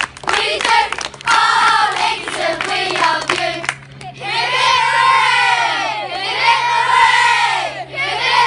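A large group of children chanting and cheering together in unison. From about halfway, the chanting gives way to long shouts whose pitch rises and falls, one after another.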